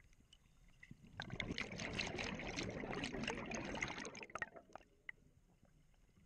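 Underwater exhaled bubbles from a scuba regulator: a crackling, bubbling rush lasting about three seconds that starts about a second in, with a few faint clicks before and after.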